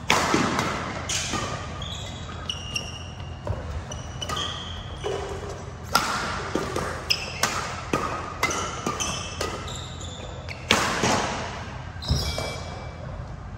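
Badminton racket strikes and court-shoe squeaks in an echoing sports hall: sharp hits, the loudest near the start, about six seconds in and about eleven seconds in, with quick footsteps and many short high squeaks of sneakers on the court surface between them.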